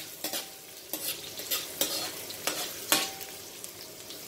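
Chopped ginger and garlic sizzling in canola oil in a pan, with a utensil scraping against the pan several times in the first three seconds as they are stirred. The sizzle keeps on alone near the end.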